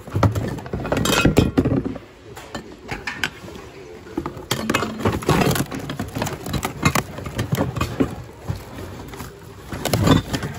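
Household goods clinking and knocking together as a gloved hand rummages through a bin of boxes, bags, glassware and dishes. There are many short, irregular knocks, loudest about a second in and near the end.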